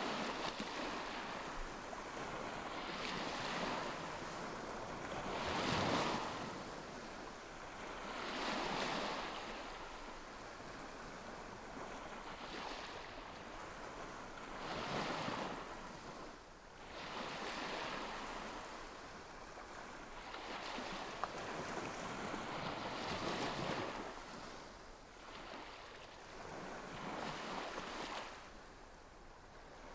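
Calm sea waves washing onto a beach, each wave swelling and falling back every few seconds.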